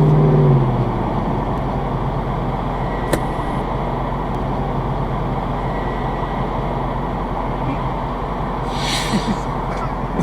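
Steady vehicle noise, a car's engine and road rumble. A low droning tone stops about a second in, and there is a single sharp click about three seconds in.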